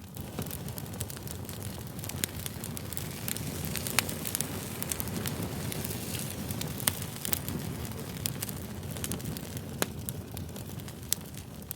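Wood fire burning: a steady low rumble of flames with irregular sharp crackles and pops, a few louder snaps among them.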